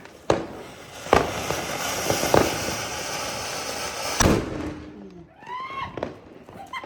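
Firecrackers going off: two sharp bangs, then about three seconds of hissing sparks with pops in it, ending in a loud bang.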